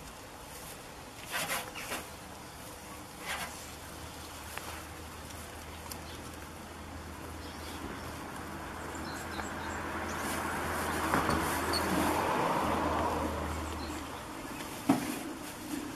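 Goats feeding on hay from a metal wheelbarrow: occasional short rustles and knocks as they pull at the hay. Under them a steady low hum, and a broad rush of noise that swells toward the middle and fades again.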